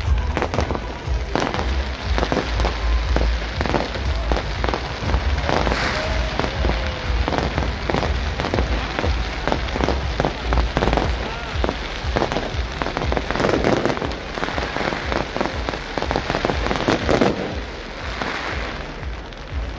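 Aerial fireworks going off in rapid succession: a dense, continuous crackling and popping over a low rumble of bursts.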